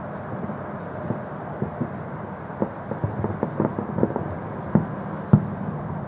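Fireworks salute going off: a run of irregular sharp bangs of varying strength over a steady rumble, with the two loudest bangs about five seconds in.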